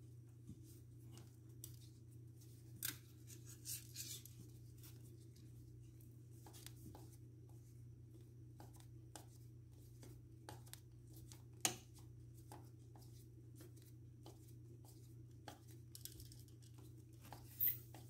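Hand screwdriver turning a receptacle's mounting screw into an electrical outlet box: faint, irregular metal clicks and scrapes, with a sharper click near the middle, over a low steady hum.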